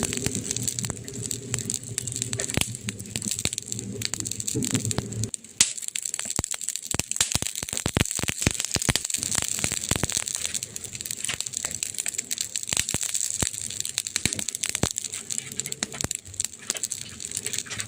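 Burning wood crackling, with a steady run of small snaps and pops and one sharp, louder pop about five and a half seconds in. A low rumble sits under the crackle for the first five seconds and returns near the end.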